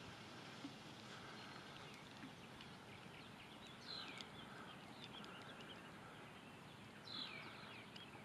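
Near silence with a bird calling faintly twice, about four seconds in and again near the end; each call is a falling note followed by a quick run of short chirps.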